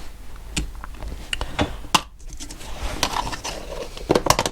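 Small metal engine parts being handled: a scattered series of light clicks and knocks, with a quick cluster near the end.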